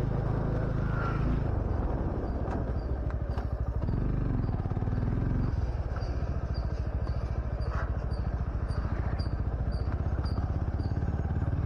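Suzuki Gixxer SF 250's single-cylinder engine with an aftermarket slip-on exhaust, running steadily at low revs while the bike is ridden slowly. In the second half a series of short high chirps repeats about two or three times a second.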